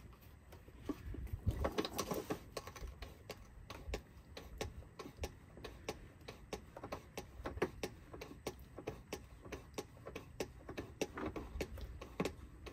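Hand pump on a fluid bottle being worked in quick, even strokes, clicking about four to five times a second as it pumps fluid through its short hose.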